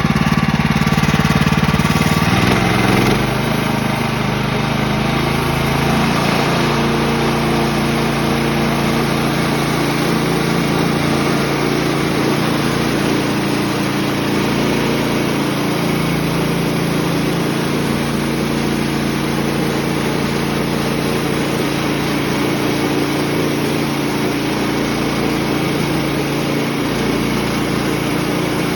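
Sawmill engine running steadily; its note changes and the level drops slightly about three seconds in.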